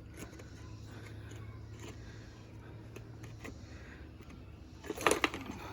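Light clicks and rattles of small plastic and metal trimmer parts being handled and fitted over alignment pins, with a louder cluster of sharp clatter about five seconds in.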